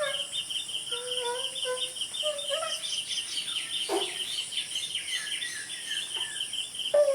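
Insects chirping in a steady pulsing rhythm, about six chirps a second, over a continuous high-pitched insect hum, with scattered bird calls.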